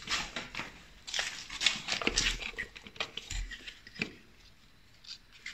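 Hands working on a motorcycle engine: scattered clicks, light knocks and scrapes of metal and plastic parts being handled, with low thuds about two and three and a half seconds in and a sharper knock about four seconds in.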